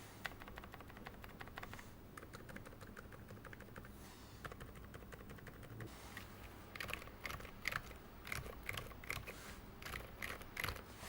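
Typing on a TOFU60 60% mechanical keyboard: a fast run of key clicks, a short lull, then slower, louder individual keystrokes in the second half.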